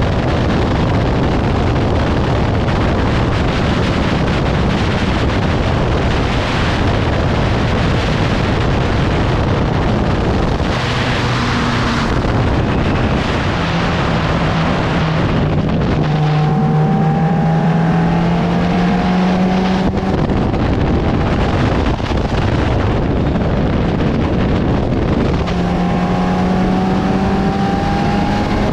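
In-car sound of a 750 Formula racing car at speed: heavy wind noise over the open cockpit with the engine note underneath. The engine pitch rises slowly as it pulls, once from about halfway to two-thirds of the way through, then again near the end.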